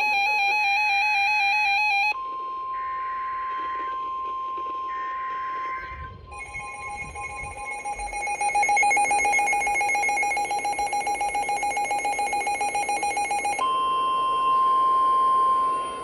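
NOAA weather radio receivers going off together for a new severe thunderstorm warning. A stepped electronic warble runs for the first two seconds, then comes three short bursts of SAME header data and the steady weather radio warning alarm tone. From about six seconds a receiver's alarm beeps rapidly, and near the end the steady warning tone returns.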